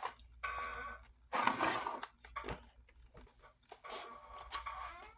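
Rustling and light clicks of a diecast model truck and its packaging being handled, in a few short bursts, the loudest about a second and a half in.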